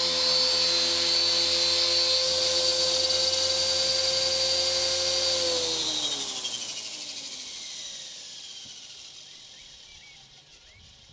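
A VCTRC 450 electric RC helicopter's 3500Kv brushless motor and helical main gear whine steadily with the rotor at speed. About halfway through it spools down, the whine falling in pitch as it fades away.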